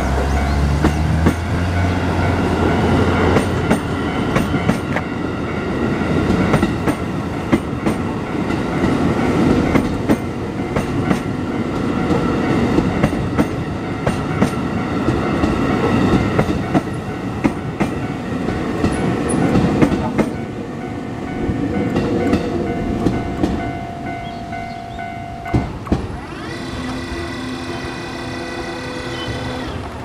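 Electric commuter train passing close by over a level crossing, wheels clattering rhythmically over the rail joints, while the crossing's warning bell rings steadily. The train noise dies away about three-quarters of the way through, leaving the bell and the hum of another train drawing near.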